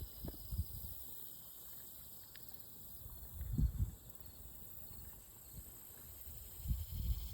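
Steady high-pitched drone of insects, with a few soft low thumps: a cluster about halfway through and another near the end.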